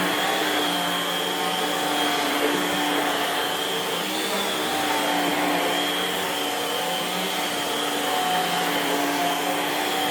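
Homemade central vacuum pulling air through its hose and carpet head: a steady rushing hiss with a steady high whine. The suction unit is remote, so only the hiss at the hose is heard, not the motor.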